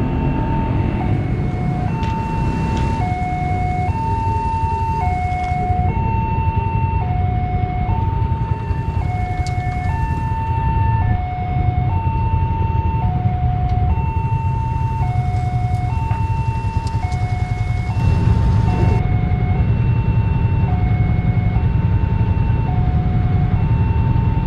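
Electronic two-tone warning alarm of a railway level crossing, alternating a longer high tone with a shorter lower tone in a steady pattern that repeats about every two seconds, over a constant low rumble.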